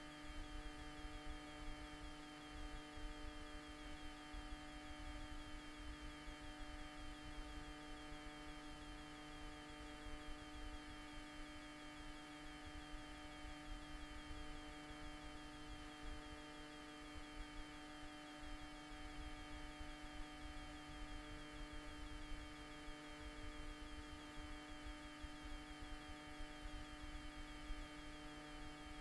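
Steady electrical hum made of several fixed tones, with a low uneven rumble underneath; it does not change.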